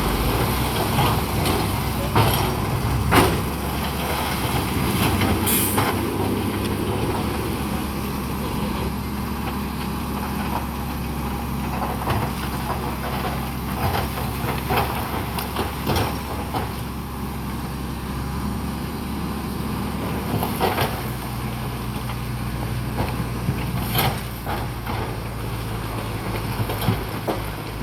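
Diesel engine of heavy earthmoving equipment running steadily, with occasional sharp knocks and clanks and a short hiss about five seconds in.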